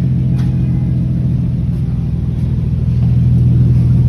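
Infiniti G37's 3.7-litre V6 idling steadily through an ARK Grip exhaust, a low even rumble, getting a little louder near the end. The exhaust is leaking at a flex pipe and at a mid-pipe flange gasket.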